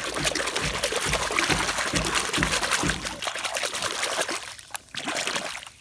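Water splashing as a hand swishes a small plastic toy back and forth to rinse off the mud. Quick repeated strokes for about three seconds, then lighter splashing that fades out near the end.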